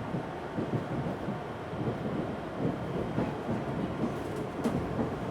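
Inside an Odakyu 1000-series motor car running on the track: a steady rumble from wheels and rails with irregular knocks and rattles, and a sharper knock near the end. No inverter whine is heard.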